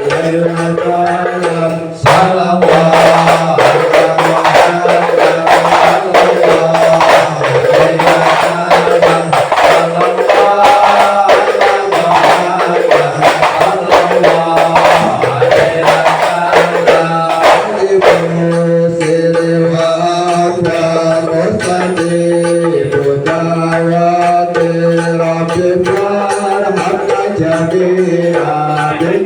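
Sholawat devotional music: a melody over a steady low drone with drum percussion. About two seconds in the percussion comes in louder and denser, and it eases off again a little after halfway.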